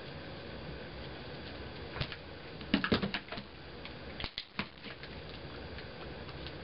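A dog's paws tapping and thumping on an empty cardboard box. The sound comes in a few quick clusters of sharp taps, the loudest a little under halfway through.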